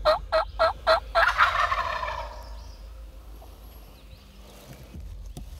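The last few of a run of evenly spaced turkey yelps, about four a second, then a wild turkey gobbler gobbling about a second in, the gobble fading over the next second or so.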